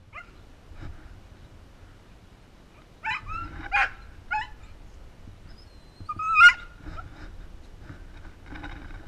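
A small dog whining and yipping in short high calls that slide in pitch: a cluster about three to four and a half seconds in, and the loudest yelp about six and a half seconds in.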